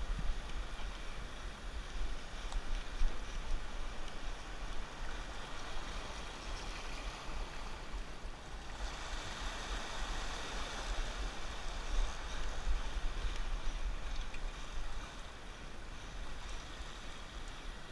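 Waves washing and fizzing over a rocky reef shelf, with wind rumbling on the microphone. A bigger wash of surf swells up about nine seconds in.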